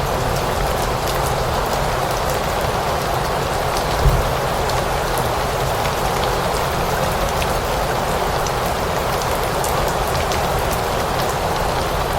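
Steady rain falling: an even hiss with scattered sharper drop ticks. A brief low thump comes about four seconds in.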